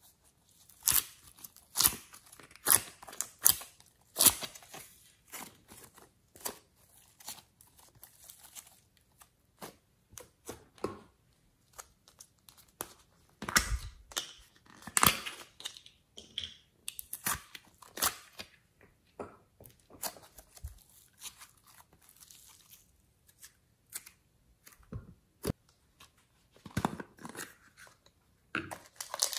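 Hands handling and opening plastic slime containers: irregular crackling, crinkling and tearing of thin plastic and lids, with many sharp clicks, busiest in the first few seconds and again around the middle.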